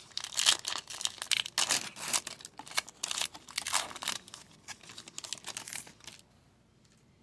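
A foil trading-card pack wrapper being torn open and crinkled by hand, a dense irregular crackle that stops about six seconds in.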